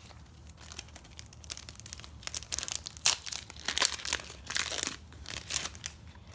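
Foil Match Attax trading-card packet being torn open and crinkled by hand: a run of sharp crackling rustles, loudest around the middle.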